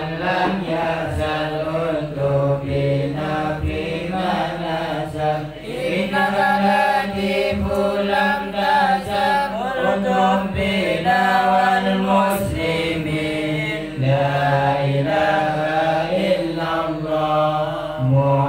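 Men chanting Islamic dhikr in Arabic, led by a voice through a microphone, in long, melodic held phrases.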